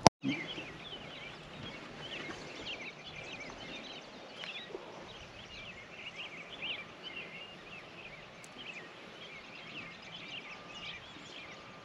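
Birds chirping and singing steadily in the background, a busy run of short rising and falling chirps over faint outdoor ambience. A single sharp click at the very start is the loudest sound.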